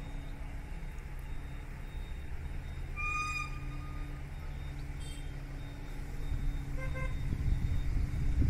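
Steady low hum of a distant engine, with one short, high-pitched toot about three seconds in. Near the end, wind rumble on the microphone grows louder.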